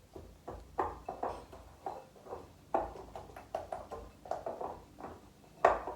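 Spatula stirring and scraping a thick mix of melted chocolate and butterscotch chips in a bowl: an irregular run of short scrapes and knocks, several a second, with a sharper knock near the end.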